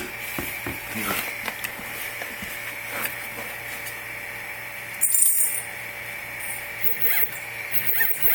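Prusa i3 Z-axis stepper motors whining and buzzing, with sharp clicks, a louder burst about five seconds in and short repeated chirps near the end. They stutter and lock up instead of driving smoothly, a locking noise the owner cannot explain.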